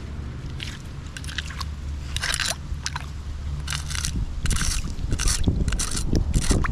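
Footsteps crunching and scraping on gravel and debris, about one or two a second and coming faster near the end, over a steady low rumble.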